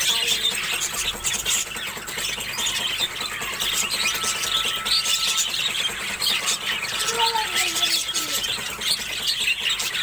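A large flock of budgerigars chattering: a dense, continuous mass of overlapping high chirps and squeaks, with a brief lower gliding call about seven seconds in.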